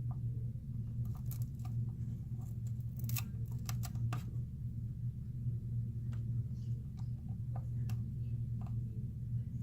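A small tool scraping and picking at broken glass fragments on a phone's frame, giving scattered light clicks and scratches over a steady low hum.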